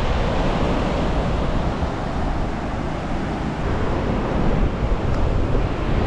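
Wind buffeting the microphone over the wash of surf breaking on a sandy beach, at an even level throughout.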